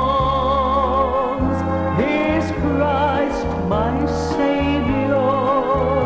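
Gospel song: voices singing long held notes with vibrato over a steady instrumental accompaniment.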